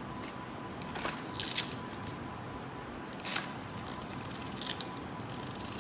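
A laminated picture-card book being handled, its pages flipped and cards pulled off and shuffled, giving a few short crackly rustles over a steady background hiss.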